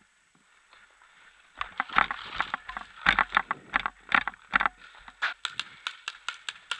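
Footsteps crunching over rubble and scattered wood debris, with gear knocking against the camera, starting about a second and a half in; near the end a quick series of sharp clicks.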